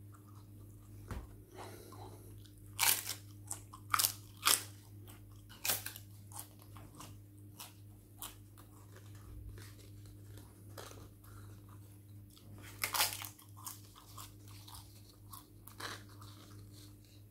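Crunchy food being bitten and chewed close to the microphone: a run of sharp, crisp crunches about three to six seconds in, another loud bite near thirteen seconds, with quieter chewing between.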